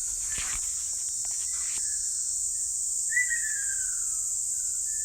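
A steady, high-pitched insect chorus, like crickets or cicadas, with a single falling bird call about three seconds in and a few faint knocks in the first two seconds.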